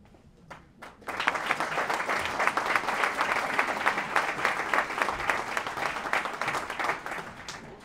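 Audience applauding. The clapping starts about a second in and dies down near the end.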